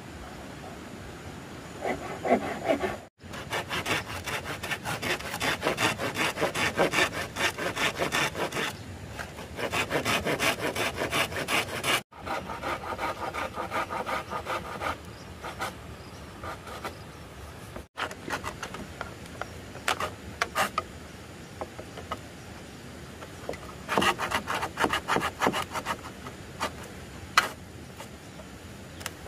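Rapid, rhythmic scraping or rubbing strokes on a hard surface, coming in bursts with short pauses between them.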